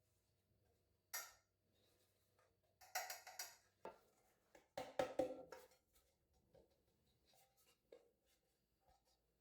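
A few light knocks and clatters of objects being handled: a single sharp knock about a second in, then two short bursts of clattering around three and five seconds in, with quiet between.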